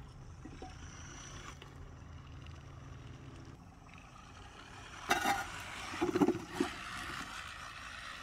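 Troglotech T815 battery-powered pipe crawler driving on pneumatic tyres over tarmac: a low steady hum from its electric drive that drops away a few seconds in, then a short cluster of knocks and clatter.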